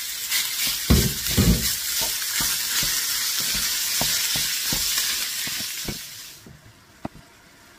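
Pork mince sizzling in a hot, oiled frying pan as it goes in and is stirred with a wooden spatula, with dull thumps about a second in and light knocks of the spatula against the pan. The sizzle stops abruptly near the end, leaving a quieter background with a single knock.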